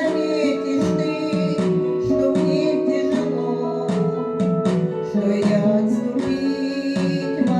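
Music: acoustic guitar strummed in a steady rhythm, with held melody notes above it.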